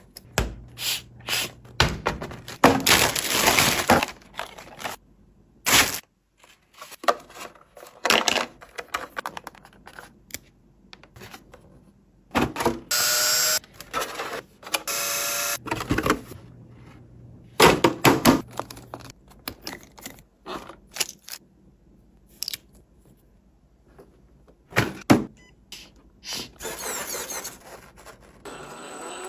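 Hand assembly of a scale RC crawler: a rubber tyre worked onto its beadlock wheel with a thin tool, and hard plastic body parts handled, giving a string of separate clicks, knocks and rustles. Near the middle comes a harsher, pitched rasp lasting a couple of seconds.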